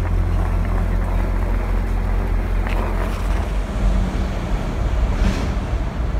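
South Western Railway Class 159 diesel multiple unit pulling out past the platform, its underfloor diesel engines giving a steady low rumble. About halfway through, the rumble turns rougher and uneven as the train draws away, with some wind on the microphone.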